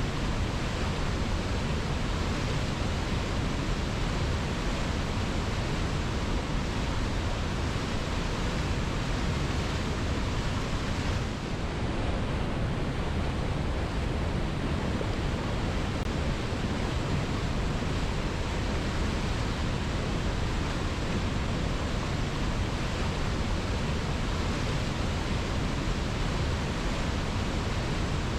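Waterfall cascading over rocks in a steady, unbroken rush of water.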